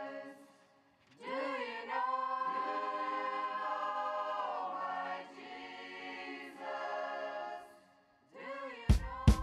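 Background music: a choir singing slow, held a cappella phrases, with a brief pause before it comes in and another near the end. A drum kit starts with sharp hits just before the end.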